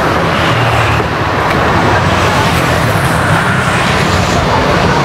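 Steady, loud road traffic noise: vehicle engines running past continuously on the adjacent street.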